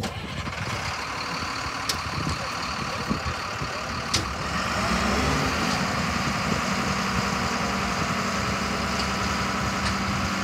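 Diesel engine of a Caterpillar IT28F integrated tool carrier, coming in abruptly at the start and then running steadily. From about four and a half seconds in, a steadier, slightly higher note rises and holds while the lift arms raise the forks.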